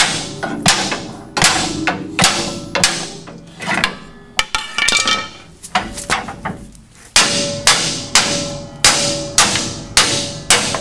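Sledgehammer blows on a 1969 Chevelle's front suspension, knocking a pry-barred coil spring up into its seat. Each blow is a sharp metallic clank with a short ring. There is a run of blows about two a second, a lull of a couple of seconds midway, then another run.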